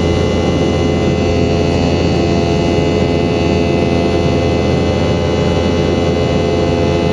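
Steady jet noise inside the cabin of a Boeing 717-200, its two rear-mounted Rolls-Royce BR715 turbofans running at a constant setting: a deep hum under a dense rushing noise, with several steady whining tones.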